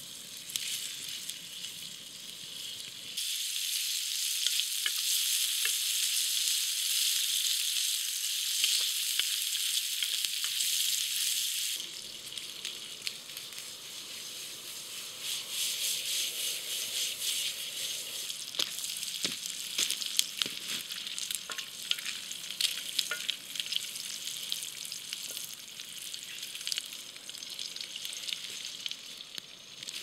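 Bacon sizzling as it fries in a pan over a campfire, a steady hiss with scattered crackles and the scrape of a wooden spatula stirring it. The sizzle is louder from about three to twelve seconds in.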